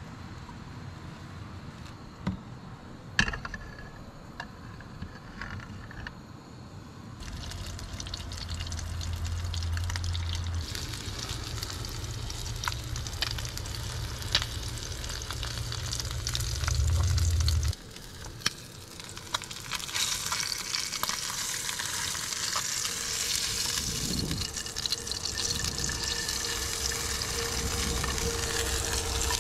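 Trout fillets sizzling in a small frying pan on a portable canister camp stove, the sizzle growing louder about halfway through, with clicks and knocks of the pan and utensils being handled. A low steady rumble runs under it for about ten seconds and stops abruptly.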